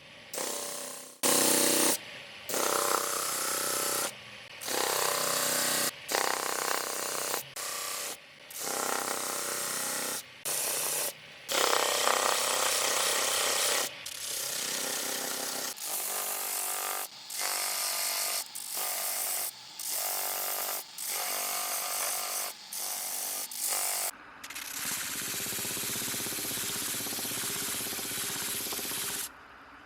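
A power tool working on wood in a series of short bursts that start and stop abruptly. From about 24 seconds in it runs steadily for several seconds with a deeper sound.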